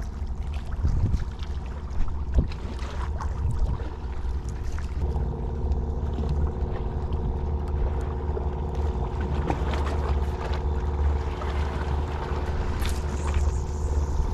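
Wind buffeting the microphone as a steady low rumble, with a couple of short knocks early and a faint steady hum underneath from about five seconds in.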